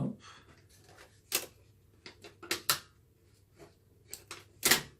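Sharp clicks and taps from packing materials being handled and moved: one about a second in, a pair around two and a half seconds, and the loudest near the end.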